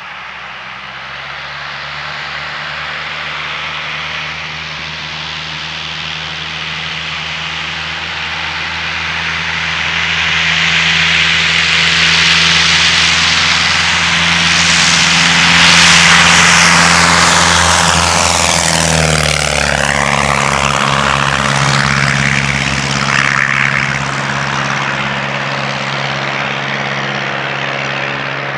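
Van's RV-6A single-engine propeller plane at full takeoff power, its engine and propeller growing steadily louder as it rolls down the runway toward the listener. It drops in pitch as it passes, about two-thirds of the way through, then keeps running as it climbs away.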